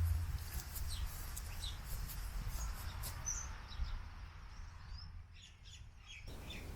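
Small birds chirping, with many short high calls scattered through, over a steady low rumble.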